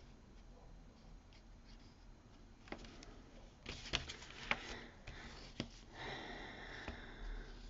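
Faint scratching of a pen drawing on card, with several sharp clicks and taps as pens are picked up, handled and set down, the loudest about four seconds in.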